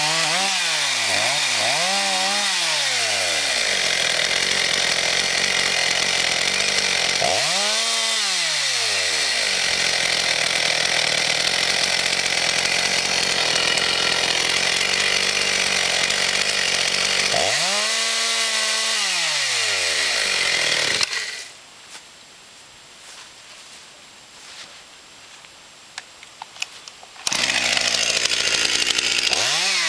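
Husqvarna two-stroke chainsaw cross-cutting a thin slice off a log at high revs, the engine note dropping and climbing back several times as the chain works through the wood. About two-thirds through the sound falls away abruptly to a much quieter level for about six seconds, then the saw is revving again near the end.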